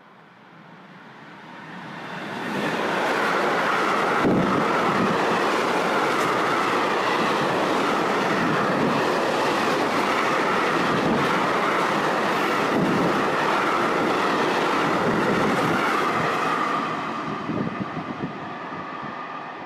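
Freight train of tank wagons passing close by. The sound builds over the first couple of seconds as it approaches, then holds as a steady loud rush of wheels on rails, with repeated clicks over the rail joints and a steady high tone running through it. It fades over the last few seconds as the train draws away.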